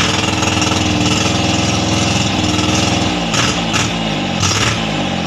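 Yanmar three-cylinder 13 hp marine diesel engine running loudly, its speed shifting up and down about three seconds in as the throttle is worked.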